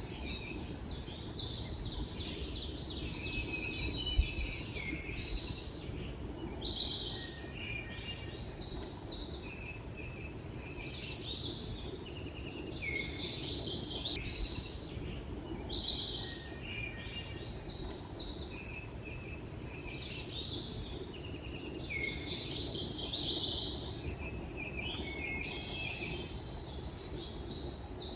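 Songbirds singing: short, high, chirping phrases repeated every second or two, some overlapping, over a steady low background rush.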